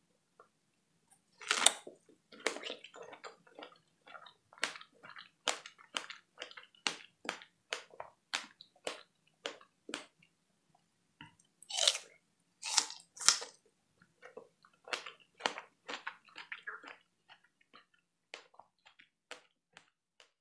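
Close-miked biting into and chewing fresh strawberries: a run of sharp chewing clicks at about two a second, with louder bites about a second and a half in and again around twelve seconds, thinning out near the end.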